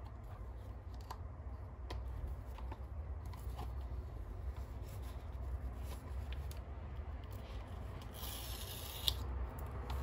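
Paper and cardboard packaging being handled and unfolded: scattered light rustles and taps over a steady low hum, with a brief louder paper rustle near the end that ends in a sharp tap.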